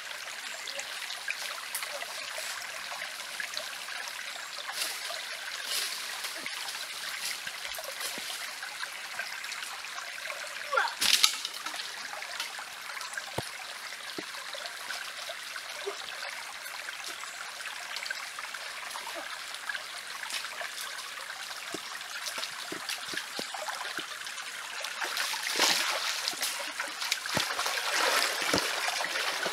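A small stream trickling steadily, with one sharp crack about eleven seconds in and louder splashing of water in the last few seconds.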